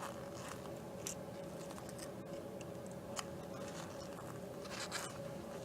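Small wire cutters snipping and scraping at the zinc casing of a zinc-carbon battery: irregular scratchy clicks and crackles over a faint steady hum.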